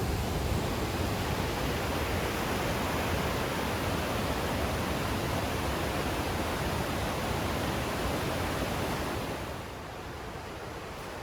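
Naena Falls, a large waterfall, rushing steadily as an even hiss; about nine and a half seconds in it drops in level and turns duller.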